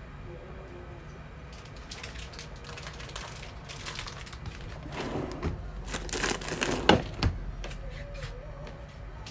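A spoon scraping and knocking against a cooking pot in irregular scratchy strokes, loudest about five to seven seconds in, with one sharp knock near seven seconds.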